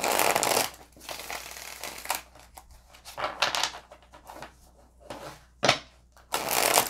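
Tarot cards being handled, rustling and sliding in short bursts. The louder bursts come in the first second and near the end, with a sharp tap about two-thirds of the way through.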